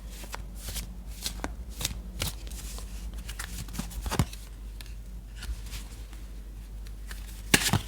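A deck of tarot cards being shuffled and handled by hand: scattered soft card slaps and flicks, with a louder flurry near the end, over a faint steady low hum.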